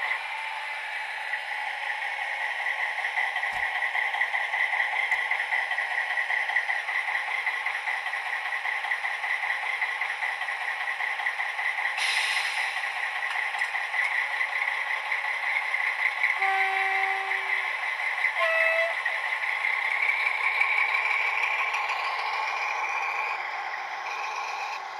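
Sound decoder in a Piko model of the PKP SU45 diesel locomotive playing its diesel engine sound through the model's small speaker: a steady running drone. A short hiss comes about halfway through, and a few seconds later there are brief horn tones.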